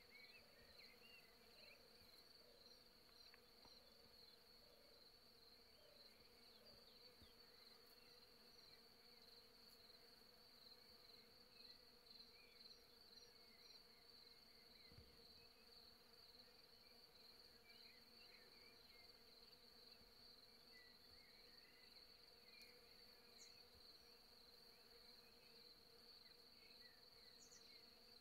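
Faint, steady hum of honeybees foraging in a flowering field maple, with a thin high steady whine over it and a few faint chirps scattered through.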